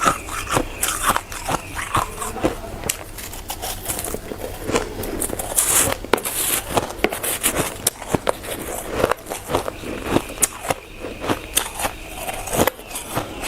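Hard, frosty shaved ice being bitten and chewed: a dense, irregular run of crunches.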